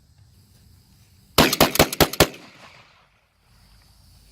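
Short-barreled 12-gauge Remington 1100 gas-operated semi-automatic shotgun fired in a rapid string of shots, all within about a second, starting about a second and a half in. The echo trails off after the last shot.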